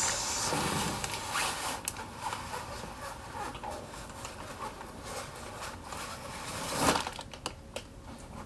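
Rustling and scraping of parts being handled, with scattered small clicks and a louder burst about seven seconds in.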